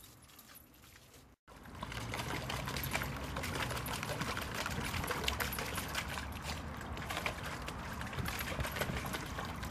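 Water splashing and sloshing in a plastic paddling pool as a Jack Russell terrier splashes about in it, with many quick small splashes; it starts suddenly about a second and a half in, after a quieter opening.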